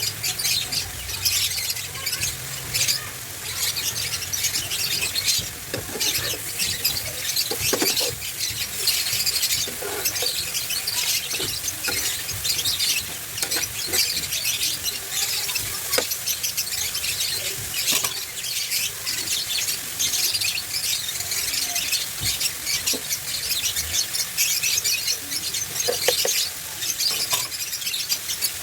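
Bitter melon sizzling steadily as it is sautéed in a pan, with a dense crackle and occasional sharper ticks of a spatula stirring.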